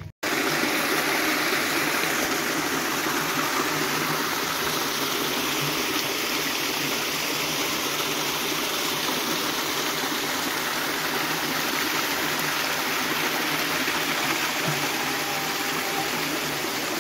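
Steady rush of flowing water from a stream, starting abruptly right after the start and running on evenly.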